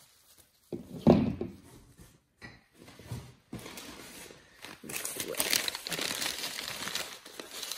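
Paper packing being crumpled and crinkled as a wrapped item is unwrapped, a dense crackling rustle through the second half. A loud bump of handling about a second in.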